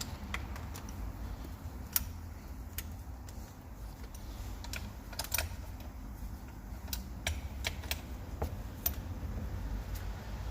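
Sharp metallic clicks of hand tools on the camshaft bearing cap bolts of a diesel cylinder head, about fifteen spread irregularly, over a steady low hum.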